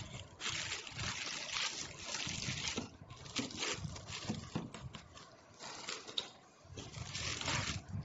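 Bubble wrap and plastic packaging rustling and crinkling as parts are handled in a cardboard box, in irregular bursts with a few sharp clicks.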